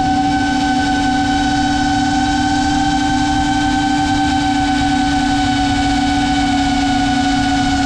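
Electric motors and propellers of a 5-inch FPV quadcopter whining at a steady pitch in cruising flight, picked up by the onboard GoPro with rushing wind noise underneath. The pitch starts to drop slightly near the end as the throttle eases.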